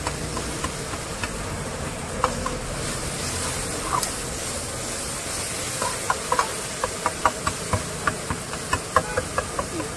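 Chopped onions and tomatoes sizzling in oil in a wok, a steady hiss. From about six seconds in, a metal ladle knocks and scrapes against the wok a few times a second as it stirs.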